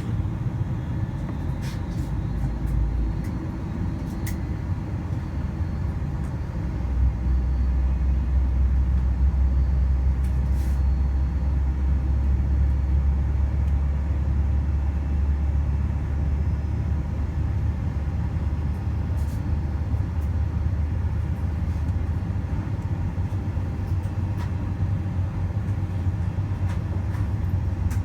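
Steady low rumble inside the cabin of a Boeing 747-400 on the ground with its engines running, growing louder about seven seconds in, with a few faint clicks.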